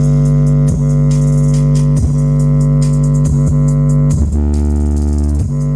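Bass-heavy music played loud through a car audio system's PCA subwoofer and mono PCA amplifier, heard inside a Toyota Hilux single-cab: long deep bass notes changing about once a second, dropping to a lower note about four seconds in, under a ticking hi-hat.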